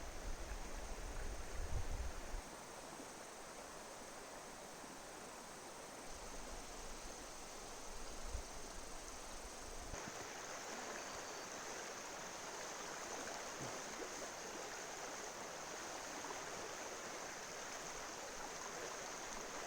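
River water flowing steadily, with a low rumble of wind on the microphone in the first couple of seconds; the rush grows a little fuller about halfway through.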